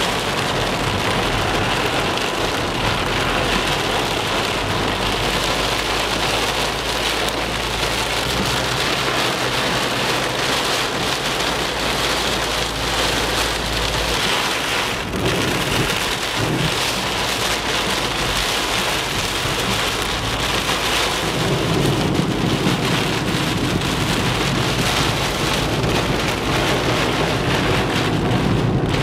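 Intense rain pelting steadily on the car's roof and windshield, heard from inside the moving car. About two-thirds of the way in, a deeper rush grows under the rain.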